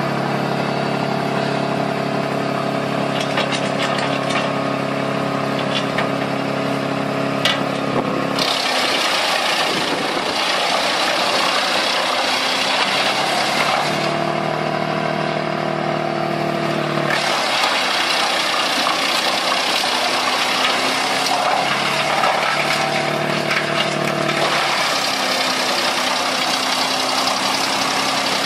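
Engine-driven homemade wood chipper running with a steady hum, broken three times by several seconds of rough, dense grinding noise as wood is fed through and chipped.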